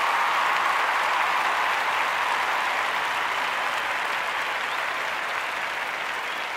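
Audience applause, a steady wash of clapping that gradually eases off.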